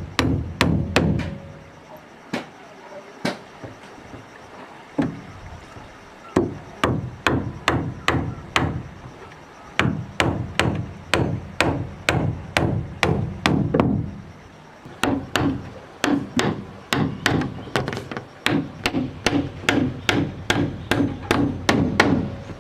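Rapid repeated blows on wood, about two a second, in runs of several strokes broken by short pauses.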